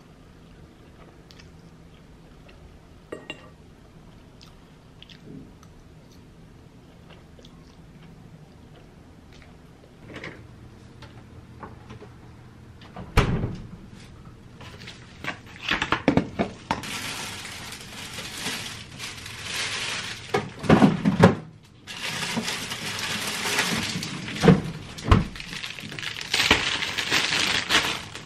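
Dishes and cutlery clinking and knocking in a kitchen, scattered at first and then busier. Two long stretches of steady hiss make up the loudest part.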